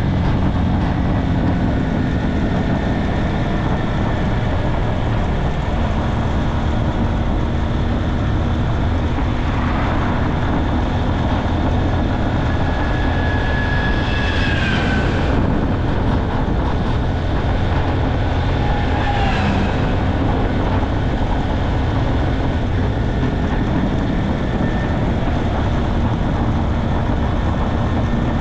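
Motorcycle riding at road speed: steady wind rush and rumble over the microphone with the engine running underneath. A brief faint whine comes about halfway through.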